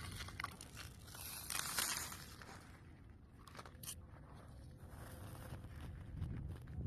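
Wind buffeting the microphone, a low uneven rumble with crackling rustles, loudest about two seconds in.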